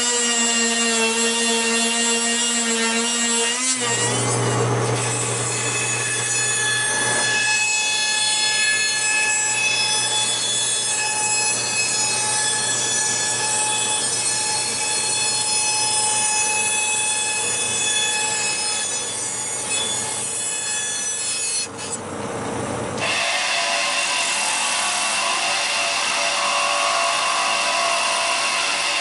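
Electric woodworking power tools running on a spalted maple blank: a steady motor whine with wood rubbing against the abrasive or blade. The sound changes abruptly about 4 seconds in and again near 23 seconds as a different tool takes over.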